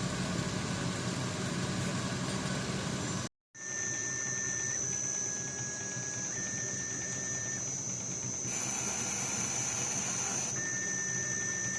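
A CNC-converted lathe: a machine runs with a dense hum until a brief cut about three seconds in. Then comes a steady high whine and a tone that holds and jumps between a few fixed pitches, typical of stepper motors driving the axes at set feed rates, with a hissing stretch of about two seconds partway through.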